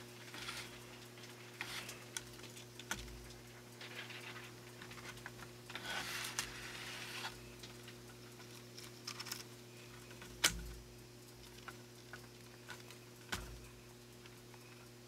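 Plastic model-kit parts and wiring being handled and fitted together: light rustling with scattered clicks and knocks, the sharpest about ten seconds in and another near the end, over a faint steady hum.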